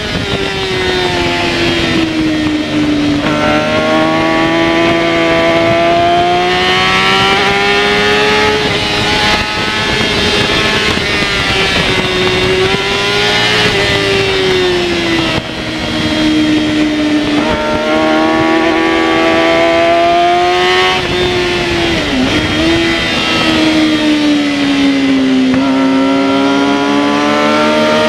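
Yamaha R6 inline-four sport-bike engine at racing revs, pitch climbing under throttle and dropping sharply at each gear change several times, over steady wind rush.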